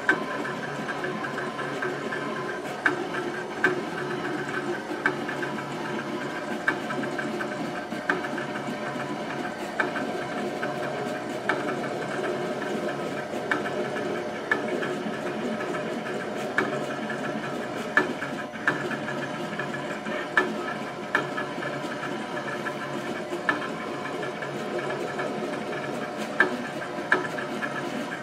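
15-inch portable stencil-cutting plotter cutting sandblast rubber stencil material: its motors whine steadily in several tones as the head and rollers move, with a sharp click about once a second at uneven intervals as the cutting head lifts and drops between strokes.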